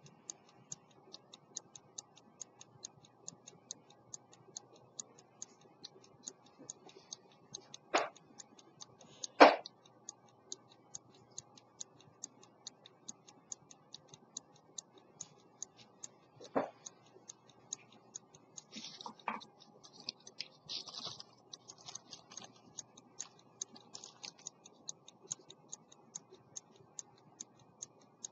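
Fast, even ticking of an 18th-century English verge fusee pocket watch movement running with its case open. A few louder knocks break in, the loudest about nine seconds in.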